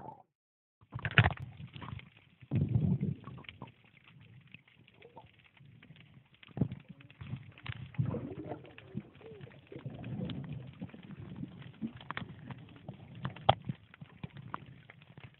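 Muffled underwater sound picked up by a submerged camera. Uneven bursts of rushing, gurgling water come with many scattered small clicks and knocks, and a few low wavering hoots partway through.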